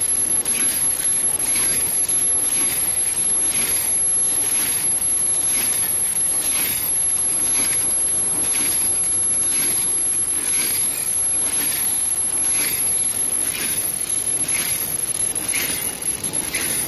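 Automatic cooler bag-making machine running, feeding aluminium foil laminate through its rollers, with a steady high whine and a short hissing stroke repeating about once a second as it works through its cycle.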